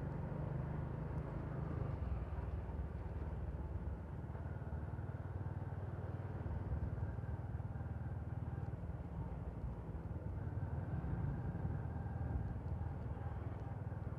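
Steady engine and road rumble of a motorcycle being ridden, heard from on board the bike.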